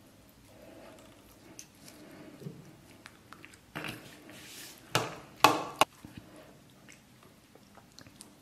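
Close-up eating sounds: soft chewing, then about four seconds in a short rush of noise and three loud, sharp smacks in quick succession.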